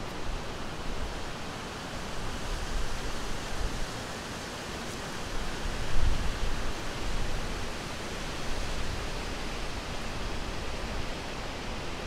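Wind noise: a steady, even hiss with low rumbling gusts that rise and fall, the strongest about halfway through.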